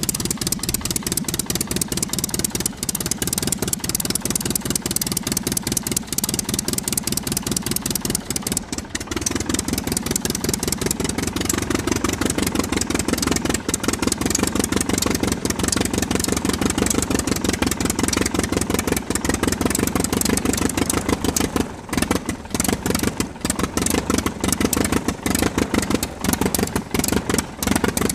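Aircraft engine running steadily, with rapid, even firing pulses. It gets a little louder about nine seconds in, and its level drops briefly a few times around twenty-two seconds in.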